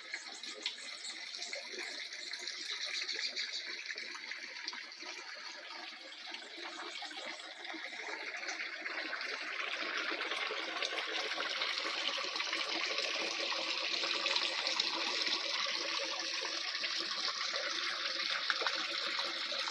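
Flowing water: a steady splashing rush that grows louder about halfway through.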